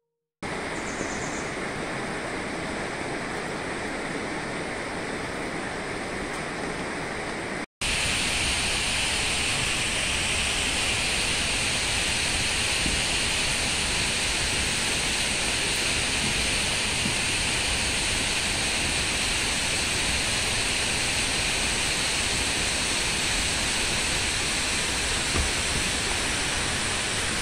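Steady rushing of water, like a mountain stream or falling rain, with no distinct events. It cuts out for an instant about eight seconds in and comes back louder.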